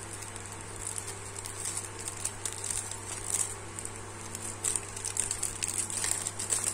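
Clear plastic sachet crinkling and crackling as fingers handle and bend it, in quick irregular bursts that start about a second in and grow busier toward the end, over a steady low hum.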